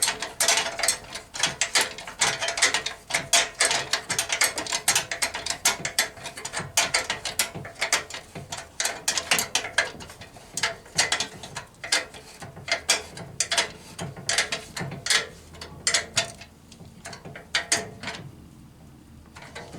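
Ratchet spanner clicking in fast runs as bolts are run in on a radiator bracket, stopping shortly before the end.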